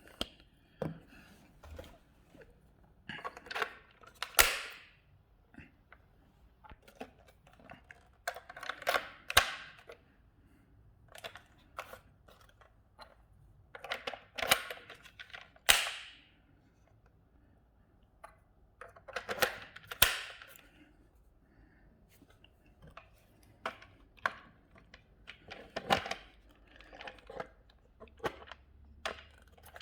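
Bunches of sharp plastic clicks, snaps and knocks every few seconds from 3D-printed hex adapters and wheels being fitted onto a Tyco Rebound RC car, with two louder snaps about four and sixteen seconds in.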